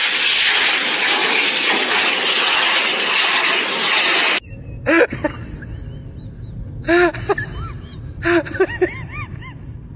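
Pet grooming blow dryer blasting air through its nozzle at a dog for about four and a half seconds, a loud steady rush that cuts off suddenly. Short scattered voice sounds over a low hum follow.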